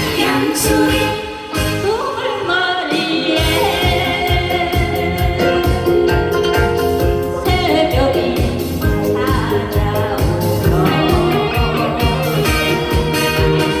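A Korean popular song: a singer's voice over a band backing with a steady beat. The beat drops out about a second in and comes back around three seconds in.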